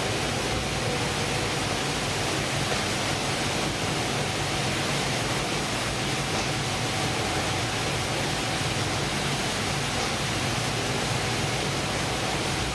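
Fish-processing machinery running on a ship's factory deck: a constant rushing noise with a faint steady hum.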